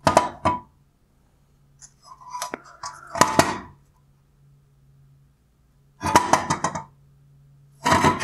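A headlight projector assembly of plastic reflector, lens holder and metal bracket being handled and set down on a wooden tabletop: short bursts of knocks and clatter, in four clusters with quiet gaps between.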